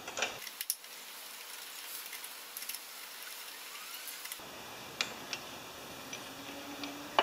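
Faint scattered clicks and taps of a hand tool on the carburetor of a Tecumseh VLV mower engine as it is being unbolted, over a low hiss, with a sharper click near the end.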